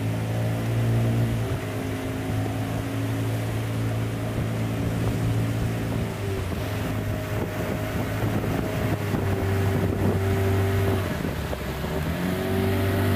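Boat engine running steadily at a constant pitch. Near the end its pitch dips and then rises again.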